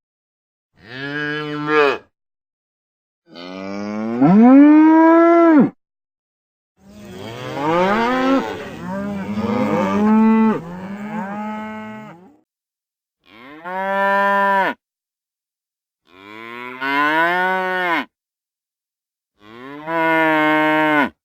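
Cows mooing: six separate moos, each one to five seconds long, with silence between them. Each moo rises in pitch and then falls. The third and longest has several moos overlapping.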